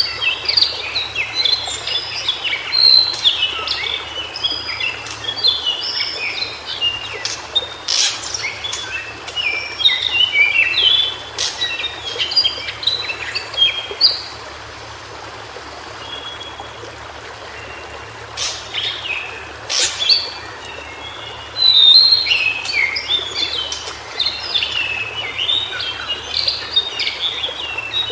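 White-browed shortwing singing: rapid, jumbled high warbling phrases, broken by a pause of several seconds in the middle. A few sharp clicks cut through.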